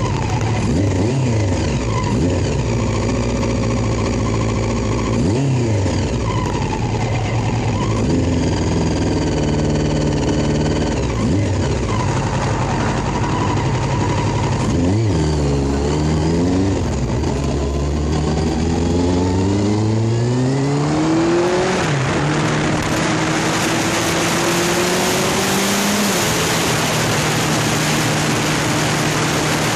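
Motorcycle engine idling with a few quick blips of the throttle, then pulling away and accelerating through the gears: the pitch climbs, drops at each shift and climbs again. From about two-thirds in, wind noise on the microphone covers the steady engine at road speed.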